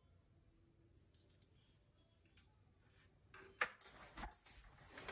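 Near silence, then from about three seconds in a cluster of small clicks and rustles with one sharp click, as a craft knife is laid down on a plastic cutting mat and cut scale tape is handled.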